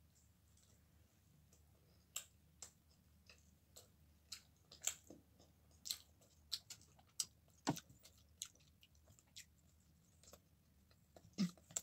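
A person biting into and chewing pizza, heard as irregular short mouth clicks and smacks, several a second at times.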